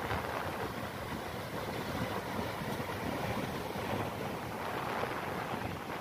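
Ocean surf breaking and washing up a sandy beach in a steady roar of noise, with wind buffeting the microphone.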